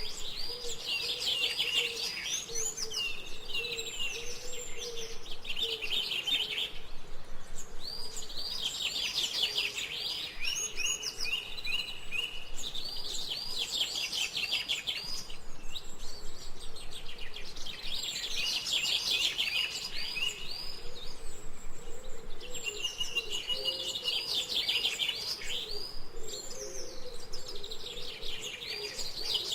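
Small songbirds chirping in bouts of rapid, repeated trilled notes, each bout lasting a few seconds with short pauses between, and a low wavering tone underneath.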